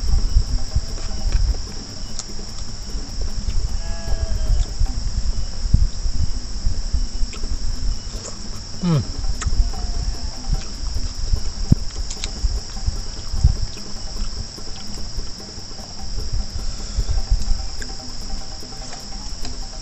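A steady high-pitched chorus of insects, over a low uneven rumble, with scattered clicks and chewing mouth noises of someone eating.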